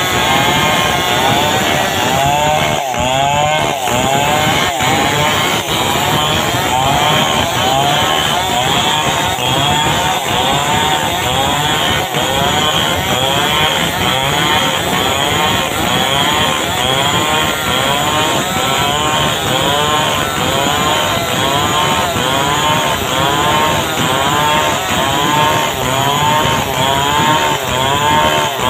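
Large two-stroke chainsaw running under load as it rips lengthwise along a log, its engine pitch rising and falling over and over, about once a second.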